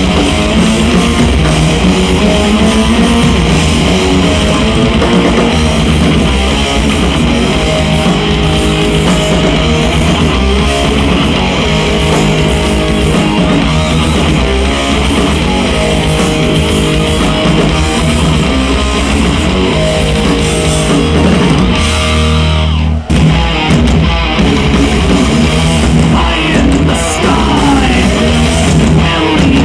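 Power metal band playing live at concert volume, heard from the crowd: electric guitars and drums, with a momentary break about two-thirds of the way through before the band comes back in.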